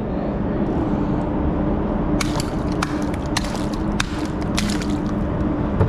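A small metal hand tool knocking and scraping barnacles on a concrete bridge piling, in a quick irregular run of sharp clicks about two seconds in, over a steady low hum.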